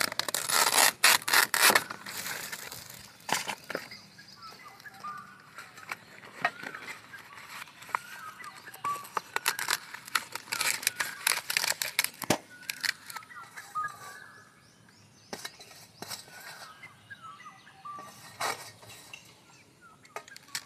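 Fresh banana leaf crackling and rustling as it is torn and folded by hand, in bursts at the start and again around ten seconds in, with birds chirping in the background.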